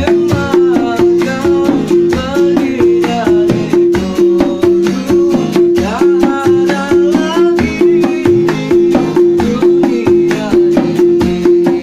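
Instrumental dangdut music: fast, even kendang hand-drum strokes under a plucked-string melody, with a low note repeated in rhythm.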